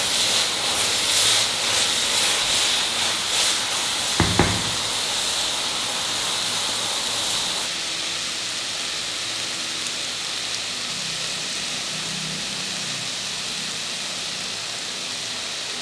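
Mooli sabzi sizzling in a kadai while a spatula stirs it, with two sharp knocks close together about four seconds in. After about eight seconds the sizzle gives way to a quieter, steady even hiss.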